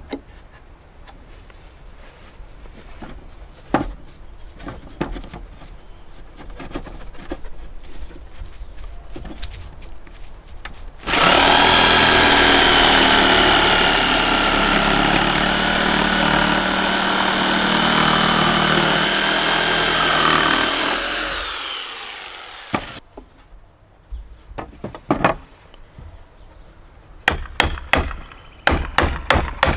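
A few light knocks of wood being handled, then an electric jigsaw cutting through a wooden board for about ten seconds before winding down. Near the end, a quick run of claw-hammer taps on wood.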